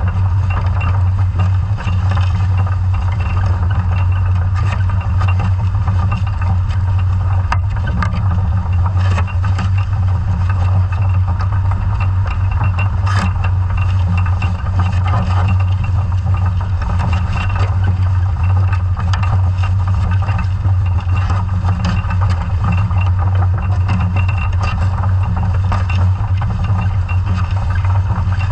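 Underwater sound of a scallop survey dredge being towed along the seabed: a steady low drone with a constant wash of water noise and scattered light clicks and rattles.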